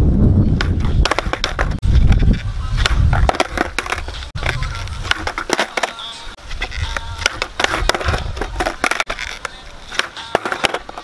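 Skateboard on asphalt during repeated kickflip attempts: sharp clacks of the tail popping, and the wooden deck and wheels clattering and slapping back down on the ground.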